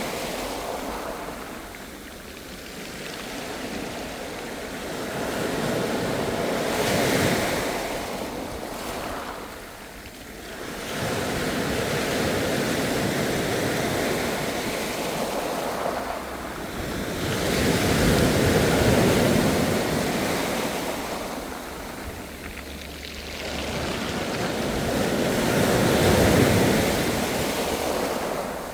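Ocean waves breaking and washing ashore in a steady haze of surf. It swells and fades in slow surges every several seconds, with four or five wave crests.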